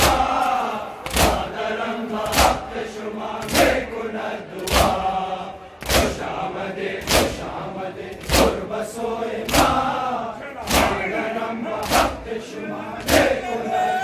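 Shia mourners beating their chests in unison (matam), one loud slap about every 1.2 seconds, keeping time with a chanted noha that many voices sing together.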